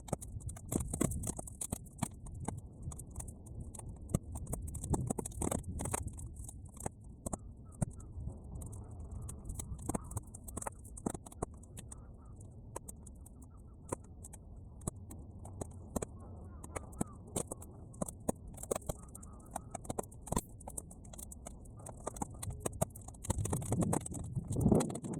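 Bonfire of half-dry weeds crackling, with irregular sharp pops and clicks over a low steady rumble.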